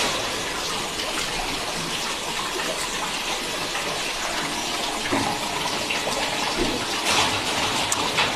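Steady rush of running or spraying water, with a few light knocks about five, seven and eight seconds in.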